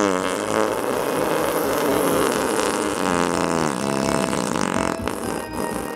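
Long, wavering cartoon fart sound effect that runs on and eases off about five seconds in.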